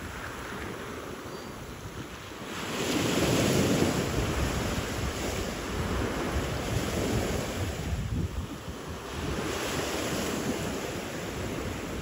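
Small ocean waves breaking and washing up the shore, one wave surging in loudest about three seconds in and another near ten seconds, with wind buffeting the microphone.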